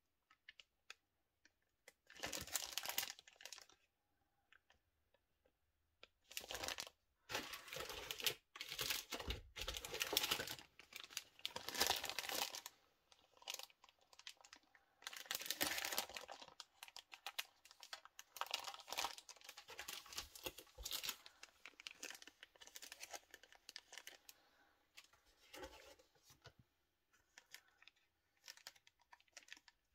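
Clear plastic bags crinkling and rustling as bagged plastic model-kit sprues are handled and turned, in irregular bursts with short pauses, softer toward the end.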